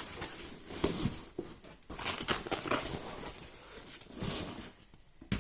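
Irregular rustling and crinkling of packaging with small clicks and knocks, as a power adapter is handled and unwrapped.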